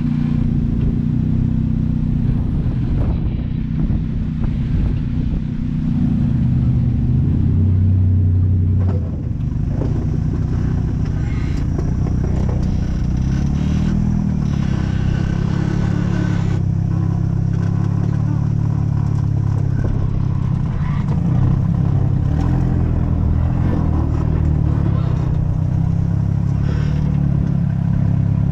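Off-road vehicle engine running under changing throttle, its pitch rising and falling as it revs up and eases off.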